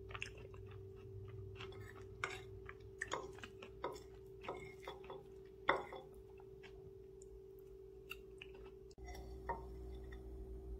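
A metal fork clicking and tapping on a porcelain plate as it cuts through soft cake, with soft chewing, over a steady low hum.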